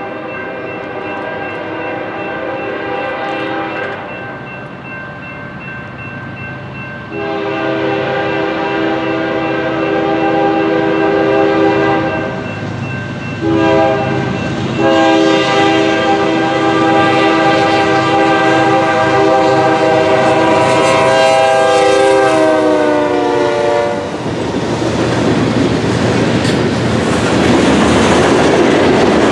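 Freight train's diesel locomotive horn sounding the grade-crossing signal, long, long, short, long, as it approaches. The last long blast drops in pitch as the locomotive passes, and then the freight cars rumble and clickety-clack by.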